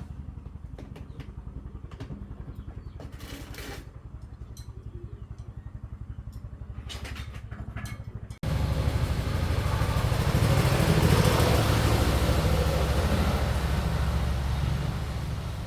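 Restored small gasoline farm-machinery engine running with an even, rapid beat. About eight seconds in it cuts out for an instant and comes back much louder and harsher.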